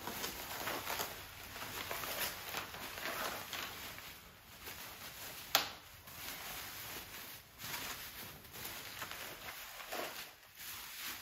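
Plastic bubble wrap rustling and crinkling as it is pulled and unwound from a bundle of golf irons, with one sharp click about halfway through.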